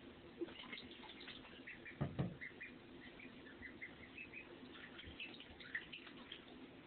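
Pekin ducklings peeping softly, many short scattered peeps. A single dull bump about two seconds in.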